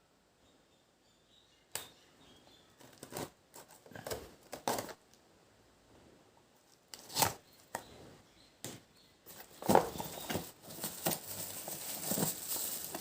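Unboxing handling noises: scattered knocks and clicks of the box and its contents being handled, then from about nine seconds in, a steady crinkling and rustling of packaging being pulled open.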